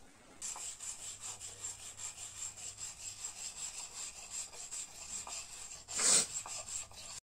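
A hand rubbing back and forth in wet paste on a round stone plate, making rasping strokes about three times a second, with one louder scrape about six seconds in.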